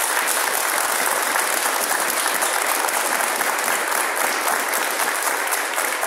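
A group of a few dozen people applauding, an even, dense clapping that holds steady.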